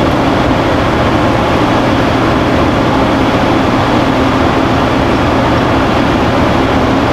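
Loud, steady drone of heavy machinery, an even rushing noise with a constant low hum running under it.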